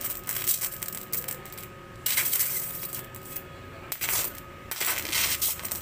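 TIG welding arc on an aluminium-alloy motorcycle crankcase, crackling and hissing in irregular spells as filler rod is fed in and sparks fly. A faint steady high whine runs underneath.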